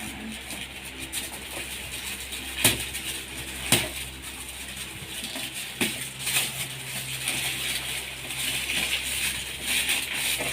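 Gift wrapping being torn and pulled off by hand: crinkling and rustling, with a few sharp knocks of the package being handled.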